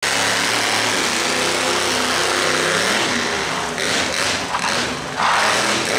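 Monster truck engine running and revving, shifting in pitch, with a harsher rush of noise building near the end.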